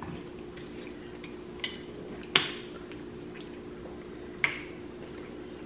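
Chopsticks and spoons clinking against ceramic soup bowls during a meal: three short clinks, the loudest about two and a half seconds in, over a steady low hum.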